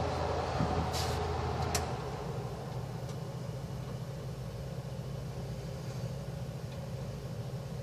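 Broan range hood exhaust fan running at low speed, a steady motor hum with air rushing. Two light clicks come about one and two seconds in, and then the lowest part of the hum drops away and it gets slightly quieter.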